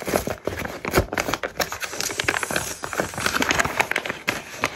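Stiff paper envelope being handled and opened: a rapid, irregular run of crackling and rustling paper.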